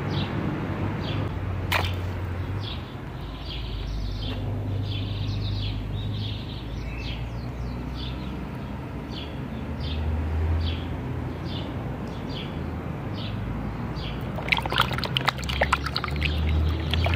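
Short high chirps repeat about every half second over a low hum. From about three-quarters of the way in, water splashes and sloshes as a hand swishes plastic toy dinosaurs in a plastic tub of water.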